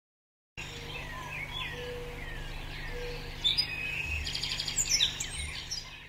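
Several birds calling and singing over each other, starting about half a second in. There are short downward-sweeping calls at first, then faster trills and chirps from about three and a half seconds in.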